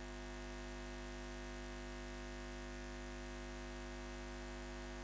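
A steady electronic hum made of several held low tones, unchanging throughout.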